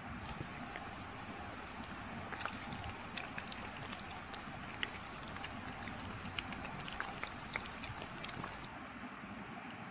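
A kitten licking melting chocolate ice cream off a wooden stick and from a plastic bowl: many quick, irregular wet licking clicks over a steady background hiss.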